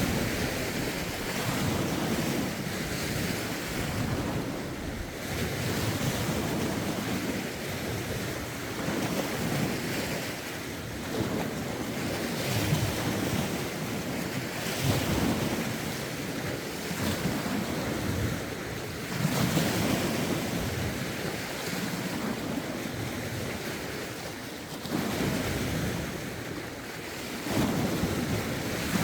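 Lake waves washing onto the shore, surging in every few seconds, with wind gusting on the phone's microphone.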